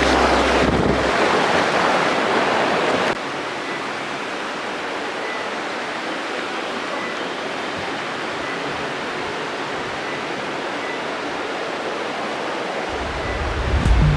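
Steady rushing of fast-flowing stream or waterfall water, dropping suddenly to a quieter level about three seconds in. The low bass of a background music track fades out in the first second and comes back near the end.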